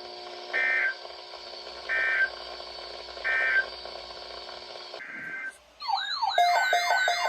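Emergency Alert System end-of-message signal: three short, identical screechy digital data bursts about a second and a half apart, over a steady radio hum. A little before the end it cuts off and a warbling, sweeping electronic alert tone begins.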